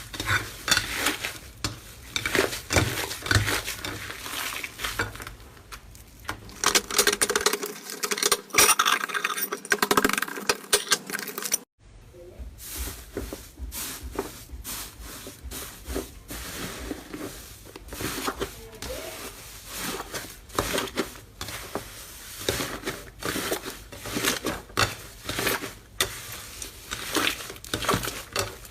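Slime being squeezed and pressed by hand, a dense stream of small clicks, pops and crackles. The sound breaks off for a moment about twelve seconds in.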